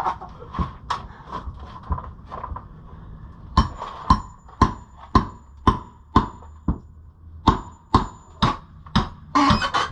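Repeated hammer blows, about two a second for several seconds, some with a faint metallic ring. A short noisy clatter comes near the end.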